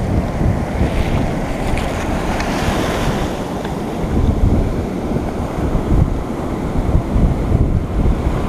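Wind buffeting the microphone in gusts, over the steady wash of breaking ocean surf.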